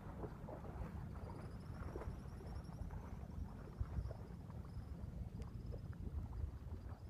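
Wind rumbling on the microphone over splashing water. A faint, high, pulsing trill starts about a second in and fades out near the end.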